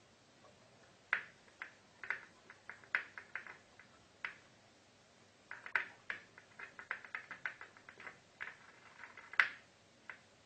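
A series of light, irregular clicks and taps, some single and some in quick runs, the sharpest one near the end.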